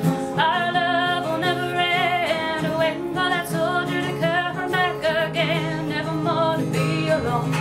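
Solo singer accompanied by a strummed acoustic guitar, singing sustained lines with a wavering vibrato on the held notes.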